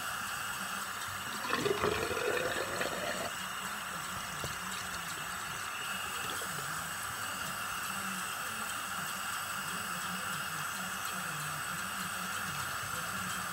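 Hot water running steadily from a tap, with a blanket held under the stream to rinse toothpaste and slime out of it. The sound is louder and more uneven for a second or so about two seconds in.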